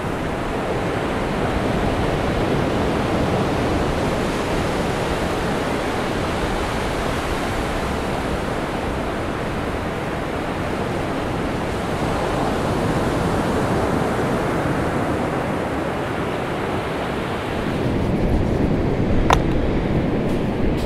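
Ocean surf washing ashore, a steady rush that swells and eases with the waves. Near the end it gives way to a lower rumble with a single sharp click.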